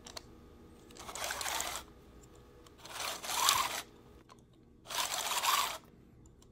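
3D-printed plastic worm gear and spur gear meshing as the spur gear is turned by hand, back-driving the sloped-tooth worm. Three bursts of plastic teeth rasping, each about a second long and about two seconds apart, each rising slightly in pitch near its end.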